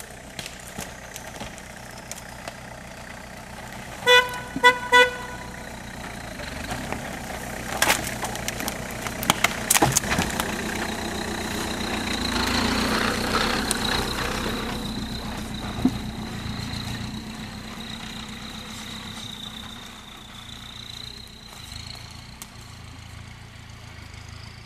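Off-road 4x4 engines running at low speed on a rough forest track. A car horn gives three short toots about four seconds in, and a run of sharp cracks and knocks follows around eight to ten seconds in.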